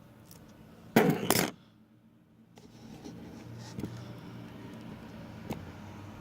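A short loud clatter about a second in, in two quick hits, then a low steady hum with two faint clicks.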